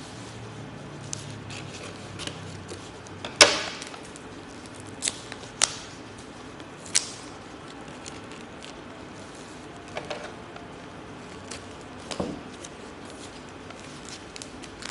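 A tape-wrapped cardboard parcel being cut open with scissors and torn open by hand: scattered sharp snips, snaps and crinkles of tape and cardboard, the loudest about three and a half seconds in.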